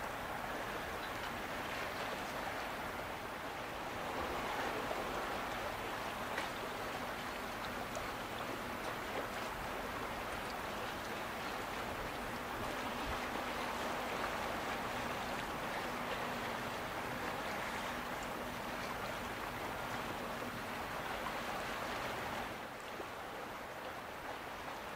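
Harbour water splashing and rushing as a tugboat runs by with its bow wave, with a faint steady low hum of the tug's engine through the middle stretch. The water noise eases a little near the end.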